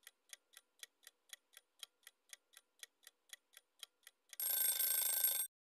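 Clock-ticking sound effect of a quiz countdown timer, about four ticks a second. About four seconds in, a louder, harsher sound effect lasting about a second closes the countdown.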